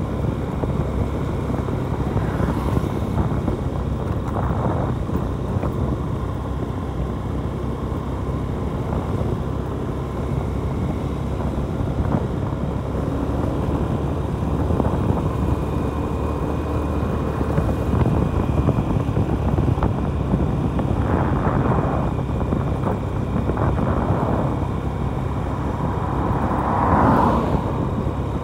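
Motorcycle riding along a road: steady engine and road noise, with a brief louder swell near the end.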